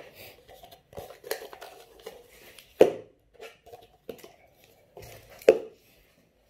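Plastic party cups being handled and set down on a hard table: a run of light knocks and clatter, with two louder knocks about three seconds apart.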